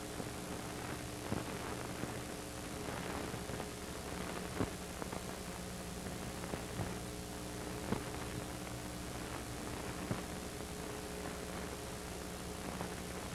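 Steady hiss and low hum with a few scattered clicks and crackles, and no dialogue or music: the programme's soundtrack is missing here, leaving only the noise of the transfer.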